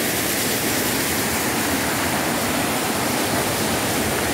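Steady, even rush of water tumbling down the cascades and rocky creek.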